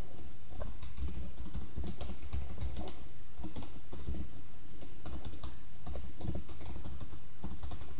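Typing on a computer keyboard: a run of irregular, quick key clicks.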